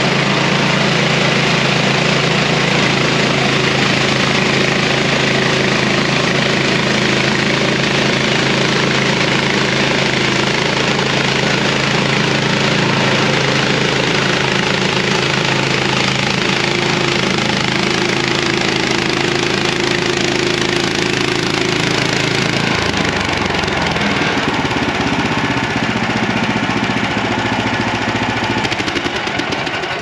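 MechMaxx SM-26 portable band sawmill running steadily at full throttle as its blade makes a slow cut through a log. The engine note shifts about three-quarters of the way in.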